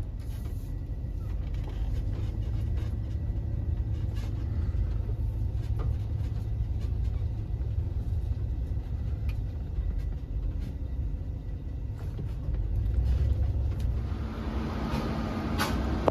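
A vehicle on the move: a steady low rumble of engine and road noise.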